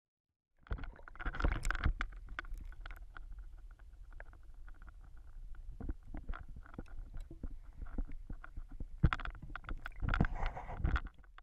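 Muffled underwater sound of an action camera in a shallow stream: a low rumble of moving water with many small clicks and knocks against the camera housing. It is louder near the start and again near the end, with one sharp knock about nine seconds in.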